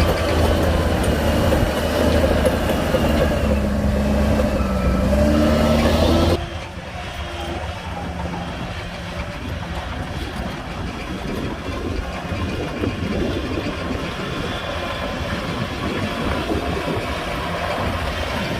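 Heavy diesel engines of earthmoving machinery running: loud at first, with one pitch sagging and recovering as if under load, then cutting suddenly about six seconds in to a quieter, rougher engine rumble.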